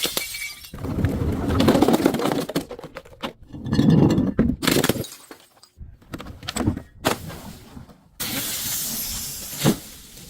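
Glass bottles being crushed and shattering: several long bursts of crunching, cracking glass with scattered crackles between them, the last burst ending in a sharp crack.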